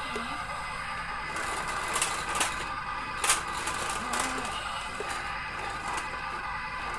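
Toy remote-control excavator's small electric motors and plastic gears whirring steadily, with a few sharp plastic clicks about two to four seconds in.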